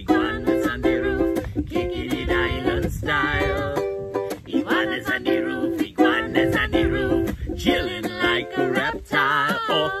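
Ukulele strummed in a steady rhythm, with wordless singing over it.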